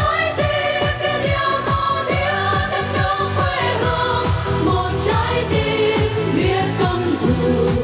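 Several voices singing a Vietnamese song into microphones over an amplified pop backing track with a steady drum beat, about three strikes a second.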